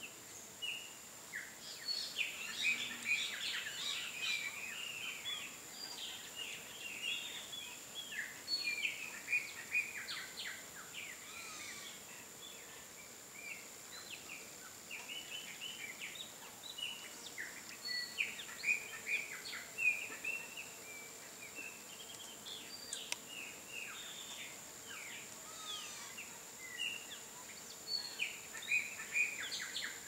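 Several small birds chirping and twittering: many short, quick chirps overlapping, thinning out for a few seconds mid-way before picking up again. A faint, steady, high-pitched whine runs underneath.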